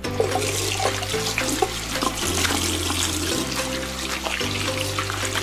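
Water running steadily from a tap into a sink, under background music with a slow, repeating bass line.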